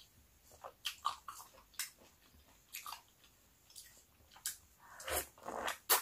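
A person biting into and chewing a large peeled orange: irregular short wet bites and mouth smacks, about eight in all, the loudest near the end.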